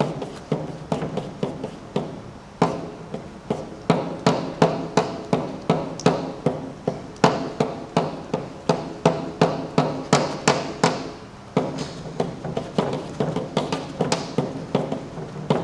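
Hand-made marking tool striking paper on a wall in a fast, even run of sharp taps, about two to three a second, with short breaks about two and a half seconds in and near eleven and a half seconds in. A steady low hum runs underneath.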